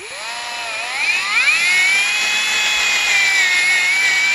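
Power drill spinning up with a rising whine over the first second or so, then running steady as a twist bit cuts into a snowmobile spindle. The bit is enlarging the old pressed-in grease-fitting hole so it can be tapped for a threaded 5/16 zerk.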